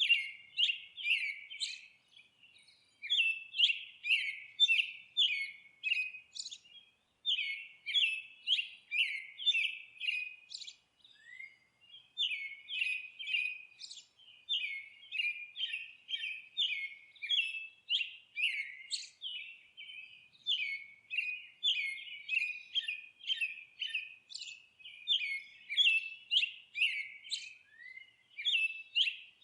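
Songbird chirping: a fast run of short, high chirps, two or three a second, broken by a few brief pauses.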